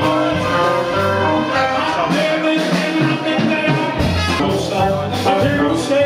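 Live band music with a singer. The bass drops out about two seconds in and comes back near four seconds.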